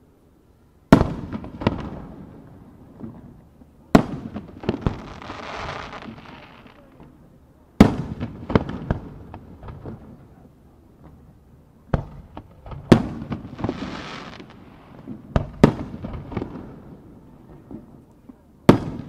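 Aerial firework shells bursting with sharp bangs, about eight in all, each followed by echoing reports. Two of the bursts trail off in a hissing crackle.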